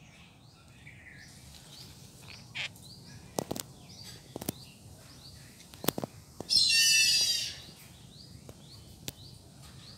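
Birds chirping in short, high, falling notes that repeat all through, with one loud warbling call lasting about a second after the middle, and a few sharp clicks.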